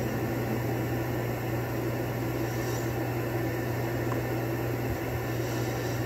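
Steady receiver hiss with a low hum underneath, coming from a Yaesu FTDX101MP HF transceiver tuned to an empty 10-meter band: no signals, only band noise.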